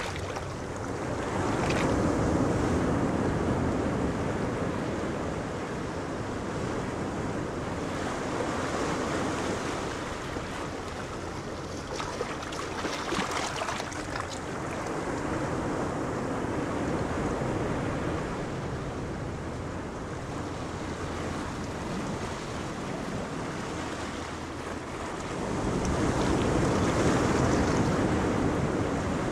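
Wind buffeting the microphone over choppy sea, with a small fishing boat's engine running as it motors into the harbour. The sound swells louder near the end as the boat passes close.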